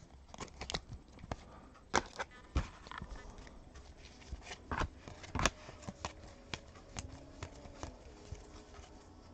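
Basketball trading cards handled and flipped through by hand: irregular light clicks, taps and slides of card stock and plastic card holders against each other.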